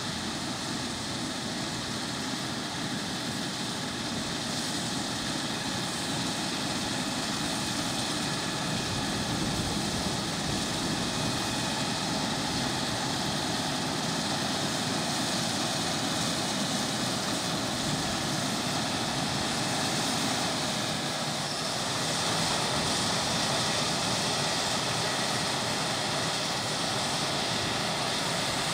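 Combine harvester running steadily: a constant drone of engine and machinery with a wide hiss, growing a little louder about eight seconds in and again a bit past twenty seconds.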